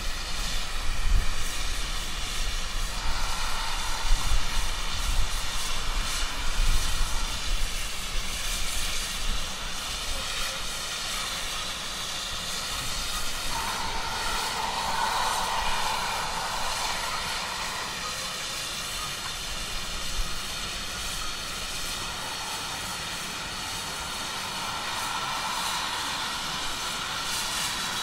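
Steam hissing in spells from GWR tank locomotives, with pannier tank 6412 standing and small prairie 4555 drawing in with its train, over a steady high whine of several even tones. Low rumbling in the first several seconds.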